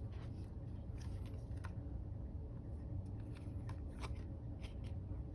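Baseball trading cards being handled and flipped through by hand: scattered light ticks and slides of card on card over a steady low hum.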